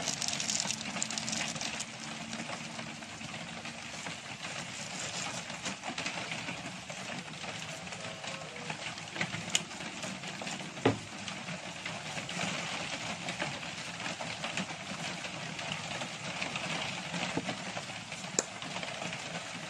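Steady hiss of rain, with a few sharp knocks as things are set down in a wooden mortar, the loudest about eleven seconds in.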